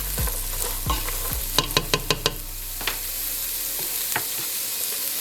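Diced carrots and celery sizzling in oil and butter in a pot as they are stirred, with a quick run of sharp knocks from the utensil against the pot about one and a half to two and a half seconds in.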